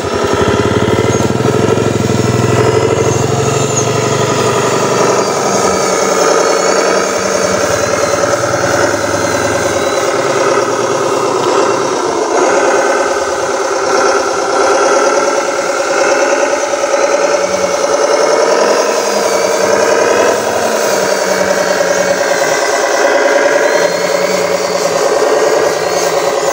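Motor and gearbox of a radio-controlled model truck whining steadily, the pitch wavering up and down as the throttle changes.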